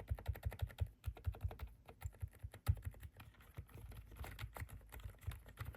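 Fast typing on a Rainy 75 mechanical keyboard fitted with linear switches: a quick, irregular run of clacking keystrokes, several a second.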